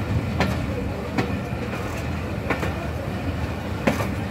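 Passenger train rolling slowly out of a station, heard from an open coach doorway: a steady low rumble from the wheels on the track, broken by four sharp clacks as the wheels cross rail joints.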